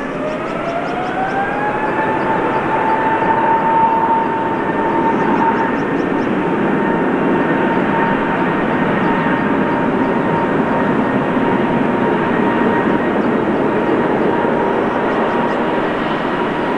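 Airbus A380's four Engine Alliance GP7200 turbofans spooling up for takeoff: a whine that rises over the first two seconds, then holds steady at takeoff thrust over loud, even jet noise.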